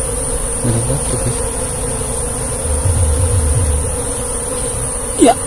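Wild Asian honey bees (Apis cerana) buzzing steadily around their nest as the comb is being taken from it. Low bumps of handling about a second and three seconds in, and a brief sharp sound near the end.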